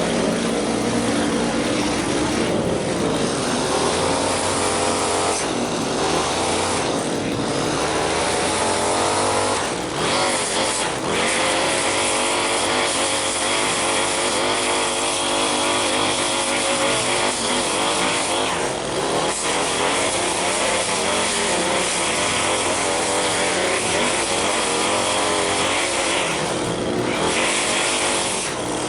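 Small gasoline engines of lawn-care power equipment running steadily, their pitch wavering slightly; a second, higher engine note joins about ten seconds in.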